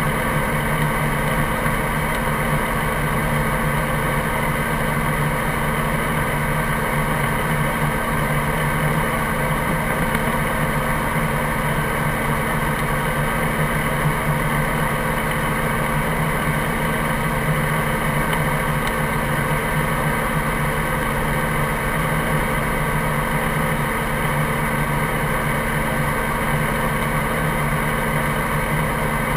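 Helicopter engine and rotor running steadily on the ground, a constant drone that does not change.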